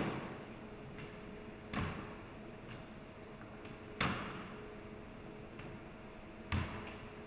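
Stainless steel agitator seal parts and seal housing knocking lightly against each other as they are fitted by hand: three short sharp clicks about two to two and a half seconds apart, over a faint steady hum.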